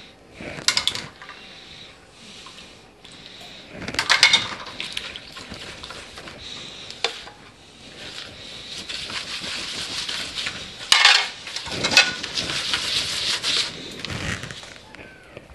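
Gloved hands mixing ground beef and pork with egg and cheese in a plastic bowl: a few sharp knocks and clatters against the bowl, and a longer stretch of squishing and rubbing through the middle and later part as the mixture is worked together.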